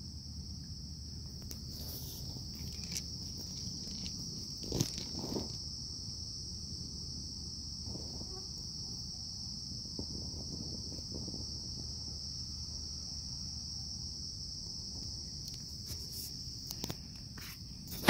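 Night insects trilling in a steady high-pitched drone over a low rumble, with a brief knock about five seconds in.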